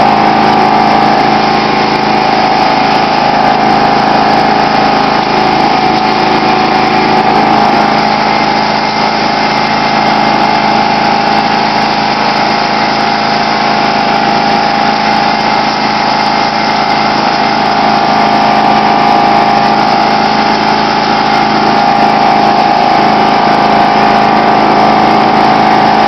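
John Deere LX176 lawn tractor's 14 hp OHV engine running steadily while the tractor pushes a front plow blade through slush.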